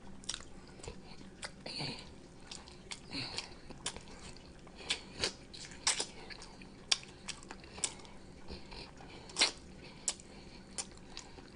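A person chewing spaghetti close to the microphone: irregular wet mouth clicks and smacks, a few every second.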